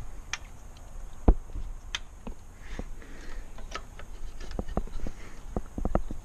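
Irregular light clicks and knocks from parts and tools being handled, with one sharper knock a little over a second in and a quick run of clicks near the end.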